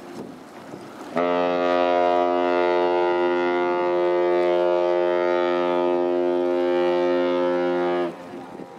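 Ship's horn sounding one long, steady blast of about seven seconds, starting and stopping abruptly.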